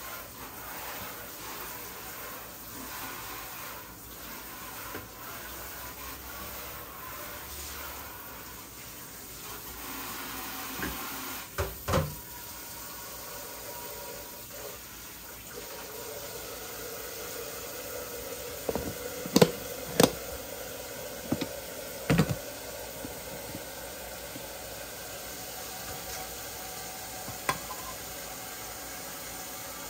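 Kitchen items being handled: sharp knocks and clatters of dishes and containers set down on a counter, two about twelve seconds in, the loudest pair around twenty seconds, then a few more, over a steady low hiss.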